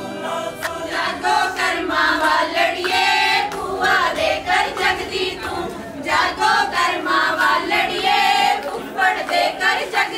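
Group of women singing together without instruments, one voice leading through a microphone, with hand claps keeping time.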